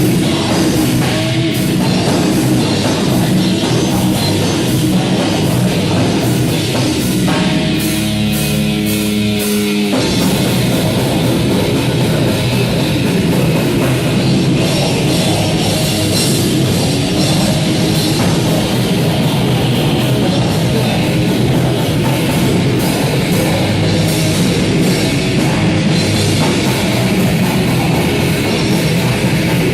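Heavy metal band playing live: distorted electric guitars and a drum kit at a loud, steady level. About seven seconds in, a chord is held for a couple of seconds with the drums mostly dropping out, then the full band comes back in.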